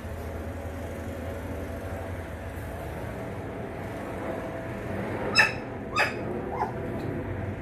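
A 12-day-old Lycan Shepherd puppy gives two short, high squeaks, the first the loudest, and a softer one just after, as its toes are rubbed with a cotton swab: a newborn pup's protest at the tactile stimulation. A steady low hum runs underneath.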